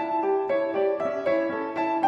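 Background music: a keyboard melody of notes changing several times a second.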